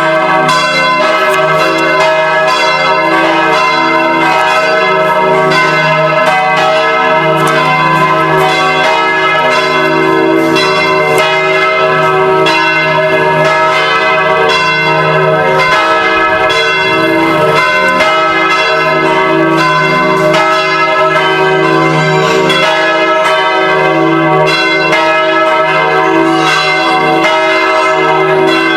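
Church bells pealing: several bells struck over and over in quick, uneven succession, their tones overlapping and ringing on in a dense, continuous wash.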